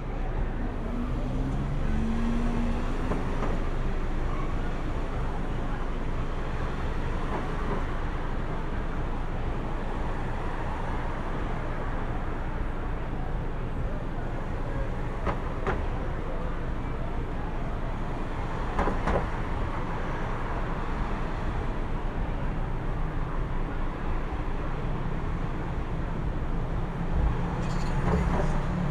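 City street traffic: a steady rumble of passing cars and buses, with a couple of short sharp knocks about midway and an engine's low drone rising near the end.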